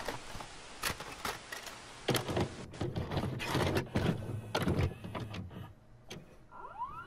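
Video cassette recorder taking in and starting a tape: a run of clicks and clunks with motor whirring over tape hiss, then a rising whine about six and a half seconds in that settles into a steady tone.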